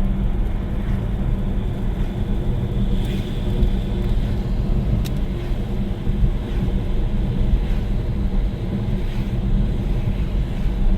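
Steady low road rumble and tyre noise of a Tesla electric car driving on a wet road, heard from inside the cabin.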